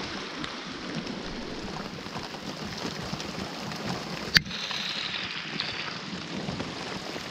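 Heavy rain falling on a river's surface, a steady hiss. A single sharp click about four seconds in.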